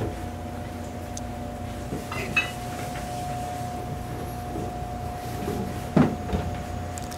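Household knocks and light clatter over a steady faint hum: a couple of small knocks about two seconds in and a louder thump about six seconds in.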